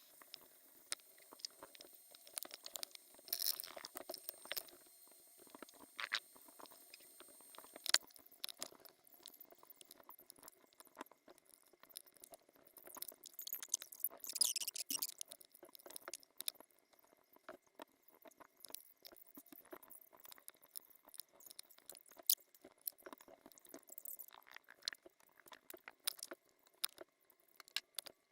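Small clicks, taps and scrapes of repair tools and parts being handled while a smartphone is taken apart for a screen replacement, with a longer hissing scrape about halfway through.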